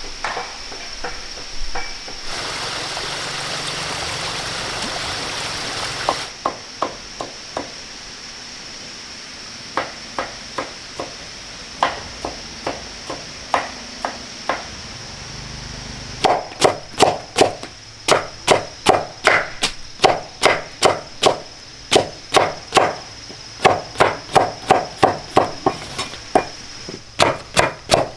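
Knife chopping on a cutting board: scattered single strokes at first, then a fast, steady run of about two to three strokes a second from a little past halfway. A few seconds of even hiss come before the strokes, and a steady high-pitched tone runs underneath.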